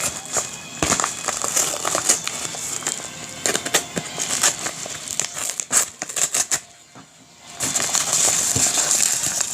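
Packaging crinkling and crackling as a boxed knife is unwrapped by hand, with a brief quieter pause about two-thirds of the way through.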